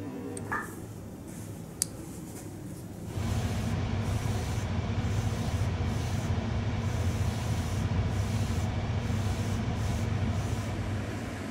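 An airbrush spraying paint onto a small model part, a steady hiss of air over a low hum that starts about three seconds in and runs on evenly. Before it, a single sharp click near two seconds in.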